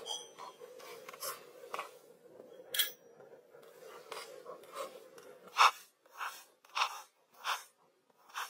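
A kitchen knife slicing through vegetables on a cutting board, about five sharp strokes in a steady rhythm from just past halfway, after a stretch of faint scattered clicks.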